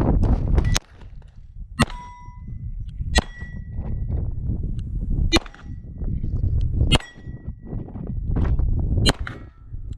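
Six 9mm shots from a Beretta 92 pistol, spaced about one to two seconds apart, several followed by a short metallic ring as a bullet strikes a steel plate.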